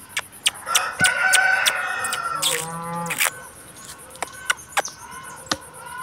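A rooster crowing: one drawn-out crow lasting about two seconds, starting about a second in, with sharp clicks scattered around it.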